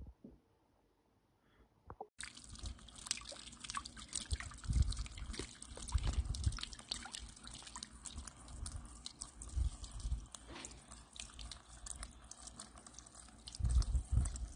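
Water trickling and dripping in a garden bird-bath fountain, with many small quick drips. It starts about two seconds in, and low rumbles come and go.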